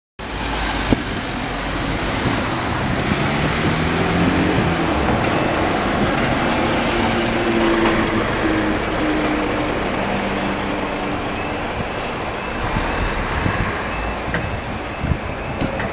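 Road traffic, mostly cars plus a coach, driving over a level crossing: engines running and tyres on tarmac as a steady rumble. The engine hum dies away about three-quarters of the way through as the road empties.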